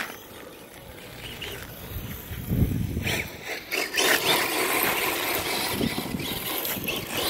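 Radio-controlled rally cars driving over loose dirt, their tyre and motor noise growing louder from about three seconds in, after a low thump.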